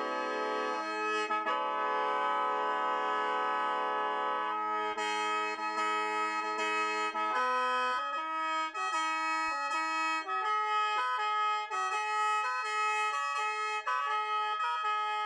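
Lao khaen, a bamboo free-reed mouth organ, played solo. It begins with long held chords, and about five seconds in moves into a quicker rhythmic melody over a steady drone note.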